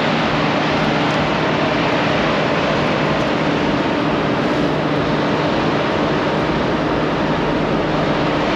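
New Holland CR combine harvester running steadily while threshing chia: an even rush of machine noise with a constant low hum, unchanging in level.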